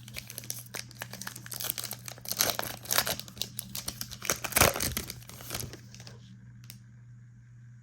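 A trading-card pack's wrapper being torn open and crinkled by hand: a dense run of crackles that stops about six seconds in.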